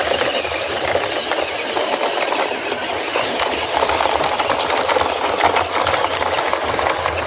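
A toy RC dump truck's small electric motor and gearbox running steadily as it drives over river stones.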